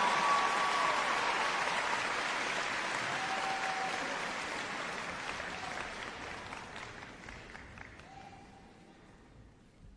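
Concert-hall audience applauding after a choir's final chord, the clapping gradually dying away.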